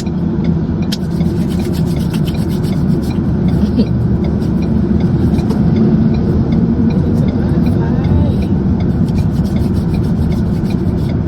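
Steady road and engine noise inside a car's cabin at highway speed, with many small clicks scattered through it.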